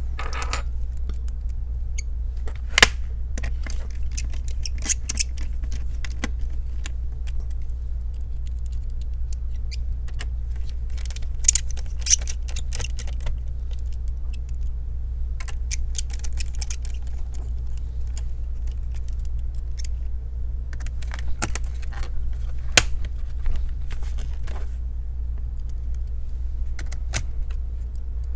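Small plastic and metal clicks and taps of laptop parts being handled and fitted back into place during reassembly, coming in scattered clusters. A steady low hum runs underneath.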